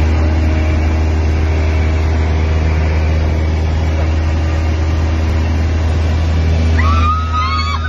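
Cessna 172S's Lycoming IO-360 four-cylinder engine and propeller droning steadily, heard from inside the cabin. Near the end, high rising and falling tones break in over the drone.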